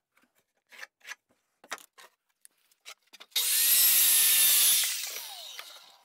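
A 7-1/4-inch circular saw cuts through an old barn board for about a second and a half, then the blade winds down with a falling whine. Before the cut there are a few light knocks and taps as the board is handled.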